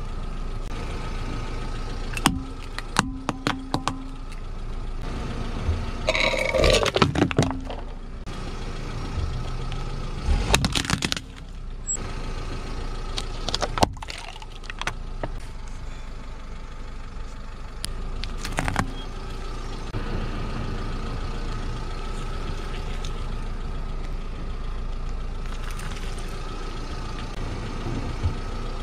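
A car engine idling while the tyre rolls slowly over small plastic dice, crushing them with clusters of sharp cracks and clicks. The loudest cracking comes about six to seven seconds in and again around ten to eleven seconds, with a few more single cracks later.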